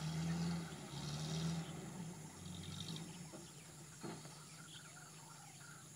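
Distant Land Rover 110 engine revving in three surges over the first three seconds, then dropping to a lower, quieter note as the truck works through the mud; a single short knock about four seconds in.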